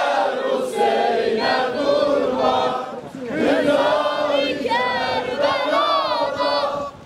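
A crowd of men chanting a religious lament together as they march in an Ashura mourning procession, pausing briefly about three seconds in. In the second half a single voice carries a wavering, ornamented melody above the crowd.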